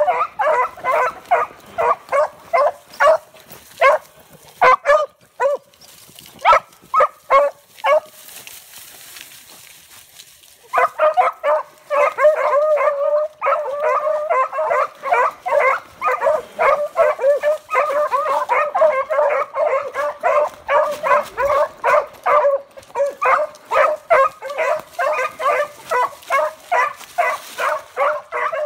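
Puppies yipping in quick high-pitched calls, several a second. The calls break off for a few seconds about a third of the way through, then start again and run on almost without a break.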